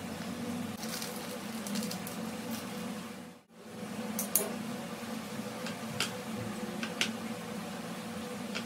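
Seasoning shaken from a paper sachet onto noodles. Then, after a brief dropout about three and a half seconds in, wooden chopsticks click against a plate while stirring the noodles, with a few sharp taps over a steady low hum.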